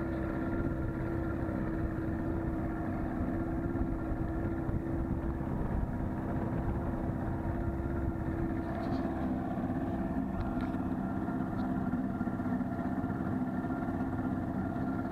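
1988 Johnson two-stroke outboard motor running at a steady cruising speed, pushing a 14 ft aluminum boat through the water.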